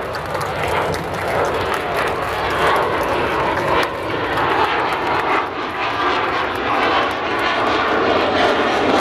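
Aircraft engine noise from a plane flying at an air show: a loud, steady rushing sound that grows slightly louder over several seconds.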